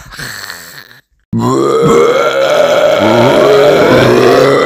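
A fading sound, a brief silence about a second in, then a long, loud, croaking burp-like vocal sound that wavers in pitch.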